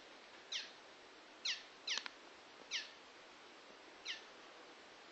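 Fledgling swallows chirping: about five short, high calls, each falling in pitch, at irregular intervals.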